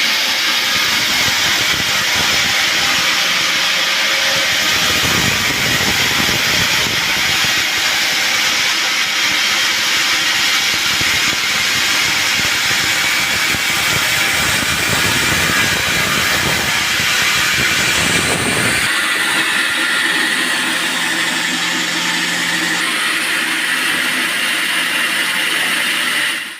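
Band sawmill running, its blade cutting through a teak log with a loud, steady hiss over the machine's motor. About two-thirds of the way through the sound changes: the deep rumble drops away and a steadier motor tone comes through.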